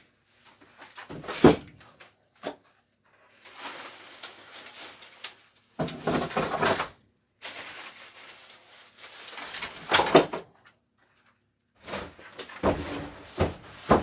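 Rustling and clattering of things being handled, in several separate bursts with a few sharp knocks.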